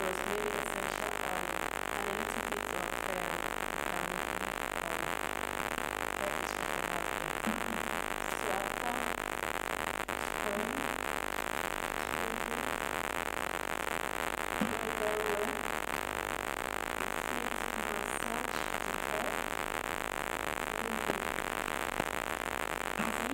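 Steady recording hiss with faint background music.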